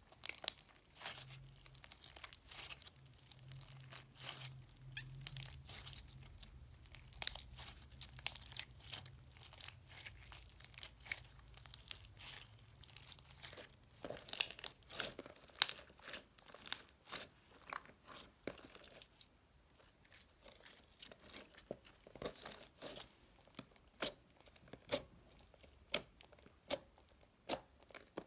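Store-bought floam slime being squished, its foam beads crackling and crunching in a quick, irregular run of small clicks and pops, with a short lull about two-thirds of the way through.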